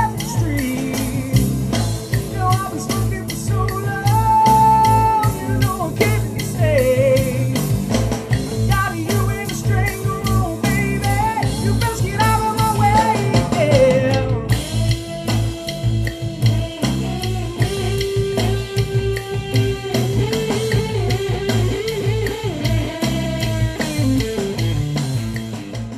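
A band playing with electric bass and drum kit, a melody line gliding on top; the music fades out at the very end.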